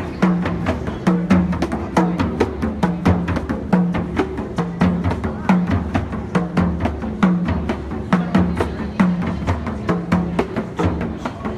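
Plena panderos (hand-held frame drums) played in a steady, fast rhythm: many sharp slaps over a repeating deep beat.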